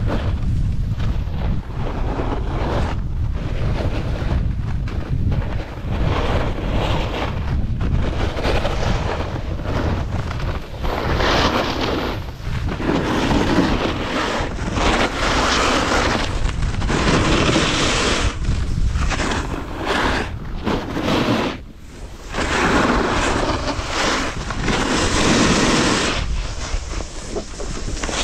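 Wind buffeting the camera's microphone at speed, with a snowboard's edges scraping and hissing across groomed snow in swells every couple of seconds as the rider carves turns.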